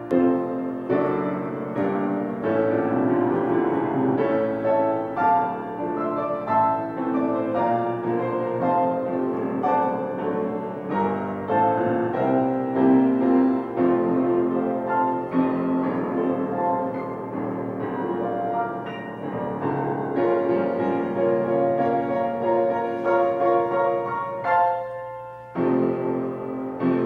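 Piano music: a run of notes and chords with no singing, pausing briefly near the end before resuming.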